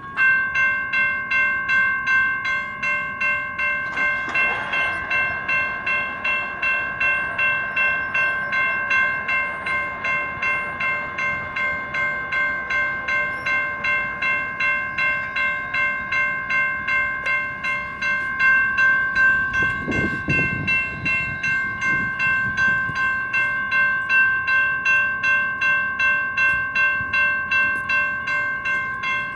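Railroad crossing signal's electronic bells starting suddenly and ringing steadily at about two strokes a second as the crossing activates, one bell sounding a little fuzzy.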